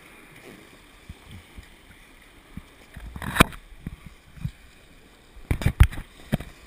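Shallow surf washing around a beached inflatable kayak, with sharp knocks and bumps as the boat and paddle are handled. There is one loud knock a little past halfway and a quick cluster of knocks near the end.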